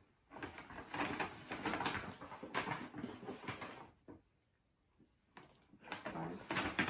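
Paper gift bag rustling and crinkling as hands rummage inside it, in two spells with a short pause of about a second in the middle.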